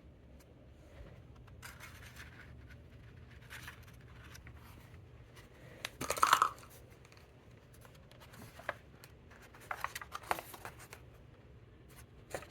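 Quiet rustling and handling sounds with scattered clicks, and a louder brief rustle about six seconds in.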